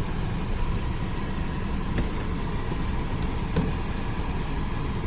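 Car AC blower fan running steadily, with a faint steady tone above the rush of air and a couple of light clicks.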